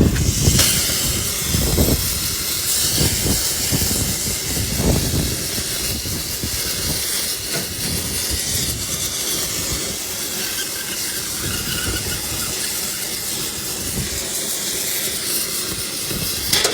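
A loud, steady hiss, with a few low knocks in the first few seconds and a brief sharp sound near the end.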